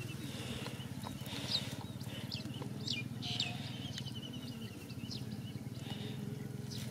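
Birds chirping in short, high, rising calls several times, with a fast rattling trill near the middle, over a steady low hum.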